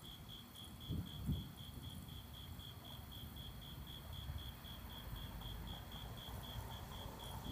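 An insect chirping steadily, a high pulsed tone repeating about four to five times a second, over a low rumble. Two short low thumps come about a second in.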